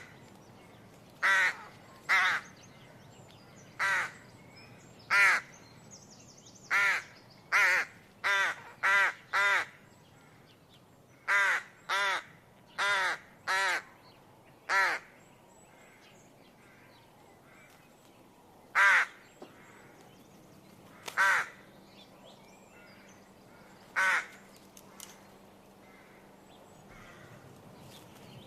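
A crow cawing repeatedly, in short calls given in quick runs of two to four through the first half, then a few single caws spaced several seconds apart.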